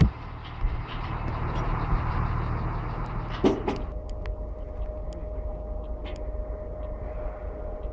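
Large diesel engine idling, a steady low rumble, with a couple of knocks about three and a half seconds in, after which a steady hum sits over the idle.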